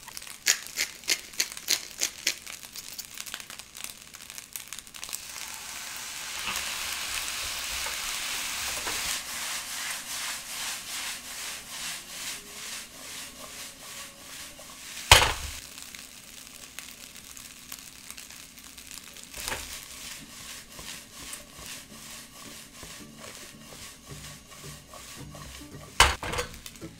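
Fried rice with diced Spam sizzling in a nonstick wok as a spatula stirs and scrapes it in a steady rhythm. A quick run of sharp taps comes right at the start, and a single loud knock from the pan about halfway through, with a smaller one near the end.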